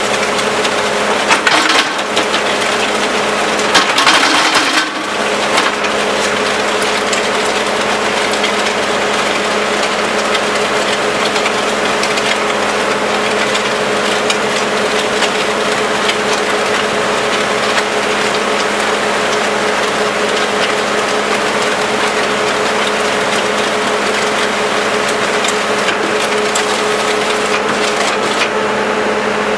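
Skid steer's engine and hydraulics running steadily while the Danuser MegaMixer S75 steel auger churns a batch of concrete mix in the bucket, a constant drone under a grinding, rattling clatter. The clatter swells louder twice in the first five seconds.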